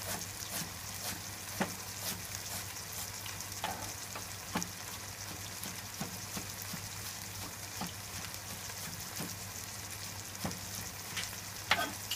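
Chicken, onion and peppers sizzling steadily in a frying pan, with irregular sharp knife strokes on a cutting board as a piece of ginger is sliced, and a louder knock near the end. A steady low hum runs underneath.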